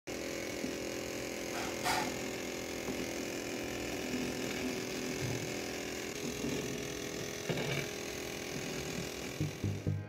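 Homemade plastic-bottle vacuum cleaner with a small DC motor running steadily, an even motor hum under fan hiss as it sucks up light flakes, with a couple of faint clicks. A pulsing music beat comes in near the end.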